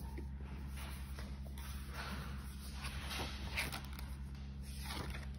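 Faint rustles and soft knocks of a spiral-bound planner being handled and opened on a desk, over a low steady hum.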